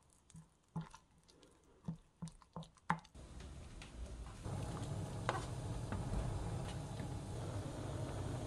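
A wooden spoon mixing a thick chili-flake seasoning paste in a glass bowl, a handful of wet squishes and clicks against the glass. From about three seconds in, a pan of water at a rolling boil on the stove takes over as a steady bubbling rush with a low rumble, growing louder about a second later, with an odd tap of a spoon.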